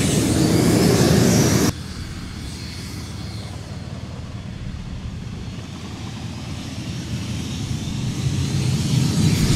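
North American T-28 Trojan's radial engine and propeller running as it taxis, stopping abruptly about two seconds in. Then a quieter, steady low rumble of taxiing aircraft engines that slowly grows louder toward the end.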